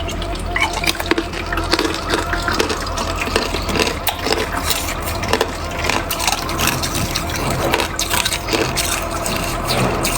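Hard ice being bitten and chewed close to the microphone: a dense, irregular run of sharp crunches and cracks, over a steady low hum.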